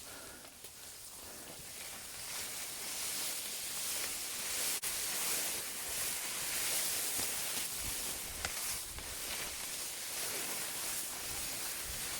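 Rushing water of a mountain stream, a steady hiss that grows louder over the first few seconds and then holds.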